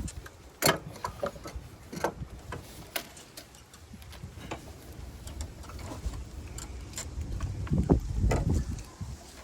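Irregular clicks and light metal knocks of hand tools working at a heater-hose clamp in a car's engine bay, with a louder low rumble of handling or movement near the end.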